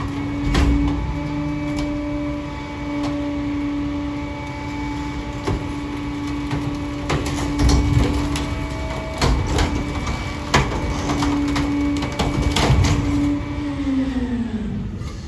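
Rear-loader garbage truck running a packer cycle: the engine and hydraulics hold a steady raised hum while bulky items crack and knock in the hopper. Near the end the hum slides down in pitch as the cycle finishes and the engine drops back to idle.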